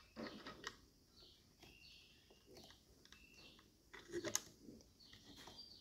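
Faint handling sounds of small hardware being fitted: scattered quiet clicks and taps as a bolt, spacer and washers are worked into place. The loudest cluster comes about four seconds in.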